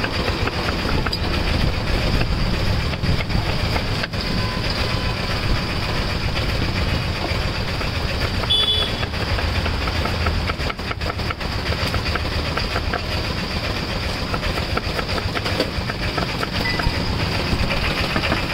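A steady low rumble with faint scattered clicks throughout.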